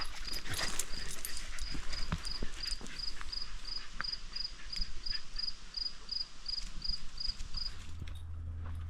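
A cricket chirping steadily, about four short high chirps a second, with scattered irregular clicks and knocks around it. Near the end the chirping cuts off and a steady low hum begins.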